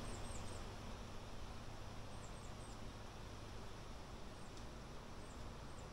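Small bird chirping in the distance: quick, very high chirps in groups of two or three, several times, over faint background noise and a steady low hum.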